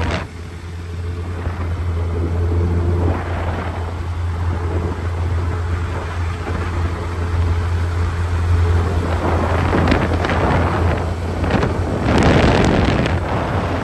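Suzuki Hayabusa Gen 3 inline-four on its stock exhaust, running steadily at a cruise under heavy wind rumble on the microphone. The rushing noise swells louder about ten and twelve seconds in.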